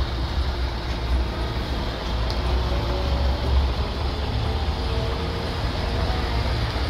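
Heavy trucks' diesel engines running, a steady low rumble with traffic noise.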